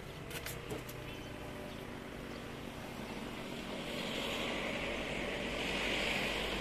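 Wind on the microphone over a low steady hum, with a few light clicks in the first second and a hiss that swells from about four seconds in.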